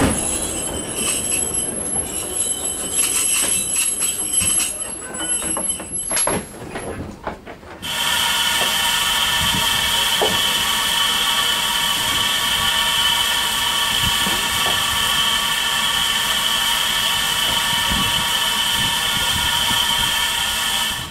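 Narrow-gauge railway carriages rolling past close by, with rail clicks and a high steady squeal. About eight seconds in, this gives way to a standing Beyer Peacock 2-4-0 tank locomotive in steam: a loud, steady hiss with a high ringing tone that holds without change.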